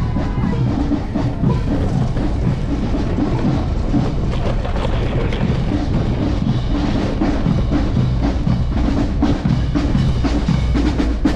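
Music with a steady drum beat and percussion, over a continuous low rumble.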